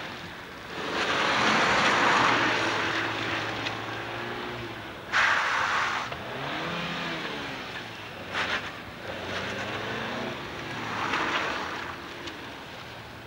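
A small hatchback's petrol engine revving up and down as the car is thrown around a cone slalom on tarmac, with three loud bursts of tyre squeal as it slides through the tight turns, the second starting abruptly.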